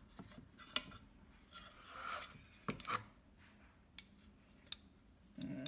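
Bread machine baking pan being handled as a baked loaf is turned out onto a wooden cutting board: a sharp clack about a second in, scraping and rubbing, then a couple of knocks and a few light ticks.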